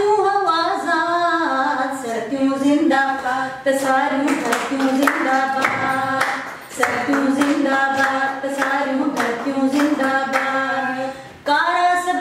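A woman singing a Sindhi anthem unaccompanied, holding long notes, with hands clapping along from about four seconds in.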